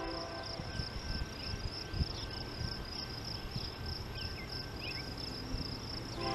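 Insects chirping in a steady, rapidly pulsing high trill, with a few short bird chirps about four to five seconds in and a low rumble underneath.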